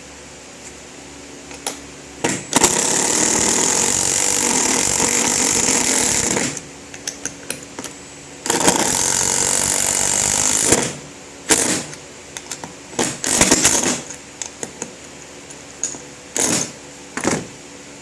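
Power drill driving screws into wood: two long runs of a few seconds each, then several short bursts as the screws are snugged down.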